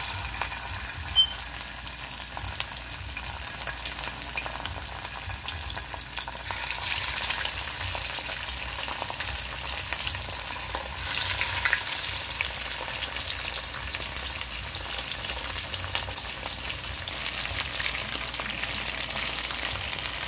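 Bangamary fish sizzling steadily as they fry in hot oil in a pan, with a single sharp tap about a second in.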